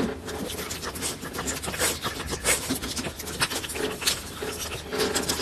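A dog growling and snarling through bared teeth, over a constant rustling crackle.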